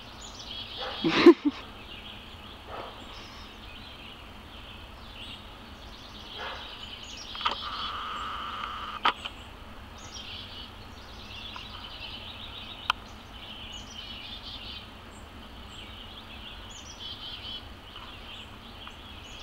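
Several birds chirping and calling in woodland over a steady high drone, with a short thump about a second in and a few sharp ticks later on.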